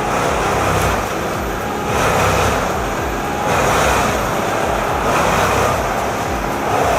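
Large Bandit 21XP wood chipper running hard while chipping logs, its engine and cutting noise swelling and easing every second or two.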